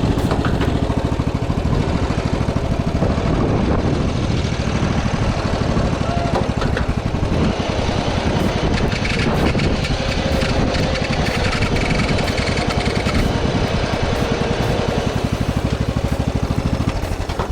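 Small engine running steadily with a rapid, even firing beat.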